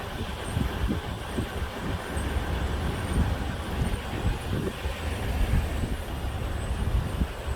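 2016 Toyota 4Runner rolling slowly, with a steady low rumble of tyres and wind on the microphone and irregular low thumps. Over it a faint high squeak comes and goes about once a second: the brake squeak, which sounds like rubbing with squeaking.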